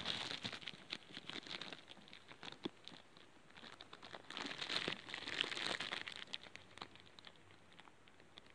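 Close handling noise: crinkling and rustling with many scattered small clicks, busiest about five to six seconds in.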